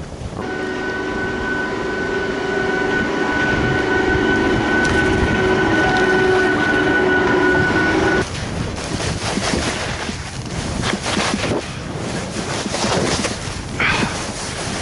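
A steady whine of several held tones lasts about eight seconds and then cuts off suddenly. After it comes the scraping rush of skis sliding over firm snow, with wind on the microphone.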